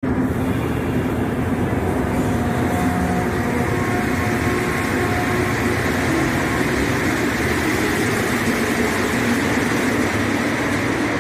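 Montréal Metro train, a rubber-tyred subway, running past a station platform: a loud steady rumble and hiss, with a few faint steady tones over it in the first half.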